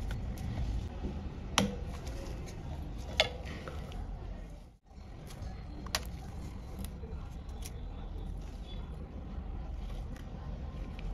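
Snap-fit clips of a Vivo Y22 phone's frame clicking free as a plastic opening pick is worked around the edge: three sharp clicks a second or two apart over a steady low hiss.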